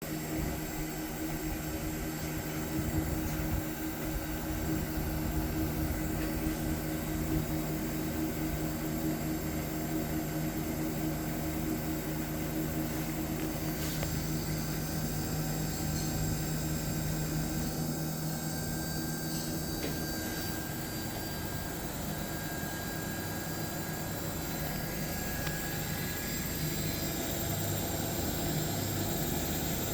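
A machine running steadily with a low hum and a noisy whir; the hum tone fades out about eighteen seconds in while the whir carries on.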